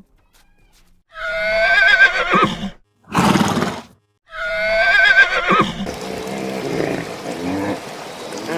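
Horse whinnying twice, each a high, quavering neigh, with a noisy snort-like blast between the two calls. Fainter, lower animal sounds follow near the end.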